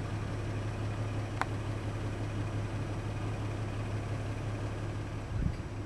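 Boat engine idling with a steady low hum, and a single short click about a second and a half in.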